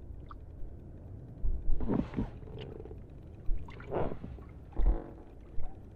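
A man's wordless vocal sounds: a few short, drawn-out grunts or exclamations about two, four and five seconds in, with low thuds between them.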